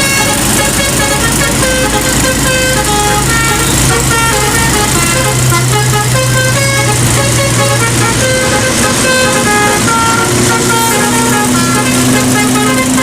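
Indonesian bus 'telolet' musical air horn playing a rapid tune of short notes that step up and down in pitch, over a steady low drone.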